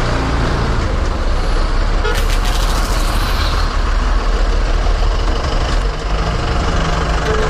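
Motor vehicle running on a rough dirt road with a steady low rumble, and a hiss about two seconds in that lasts just over a second.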